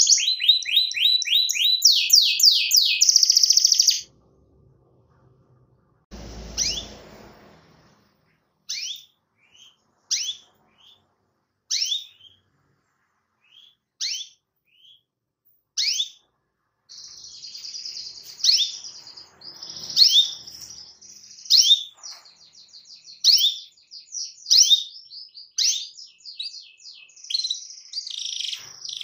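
Domestic canary singing: a fast, high rolling trill, then, after a short pause, single sharp downward-swept 'cuit' chirps every second or two, a canary calling out to a rival. Past the middle the rolling trill starts again with the chirps mixed in.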